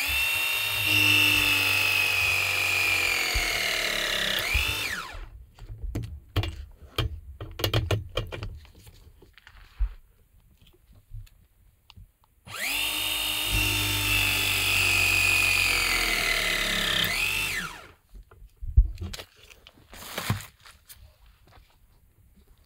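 Cordless press gun crimping copper press fittings on a gas pipe: its motor runs for about five seconds, the pitch sagging slightly under load, then rises briefly and stops as the press cycle finishes. A second press cycle starts about halfway through, with clicks and knocks of the tool being handled before and after it.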